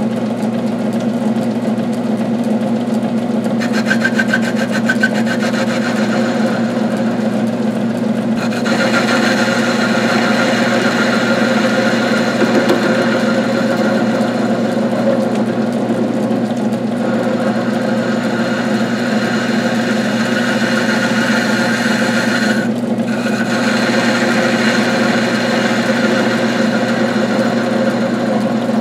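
South Bend 9-inch belt-driven metal lathe running with a steady hum. From about four seconds in, a single-point tool cuts a steel flywheel blank, adding a high scraping sound that breaks off briefly a few times between passes.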